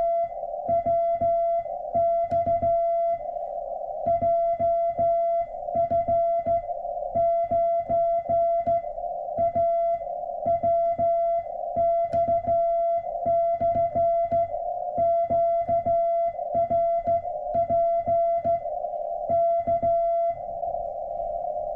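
Morse code through a ham radio transceiver: a single tone near 700 Hz keyed on and off in dots and dashes at an even pace, over steady receiver hiss. The keying stops near the end, leaving only the hiss.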